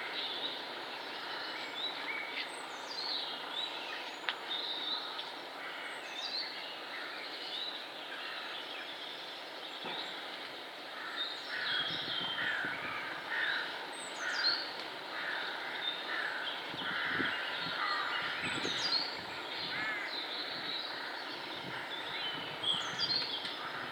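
Woodland birdsong: several birds singing and calling at once, with one high falling phrase repeating every four or five seconds and a busier stretch of calls in the middle.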